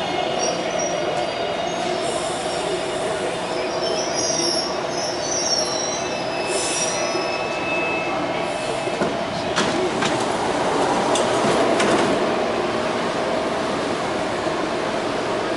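A Taipei Metro train standing in an underground station, its equipment giving a steady hum and whine. A few short clicks come about ten seconds in.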